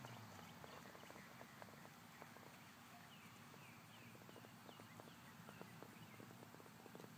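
Faint hoofbeats of a horse moving over arena sand, heard as soft irregular ticks, with a few faint high chirps around the middle.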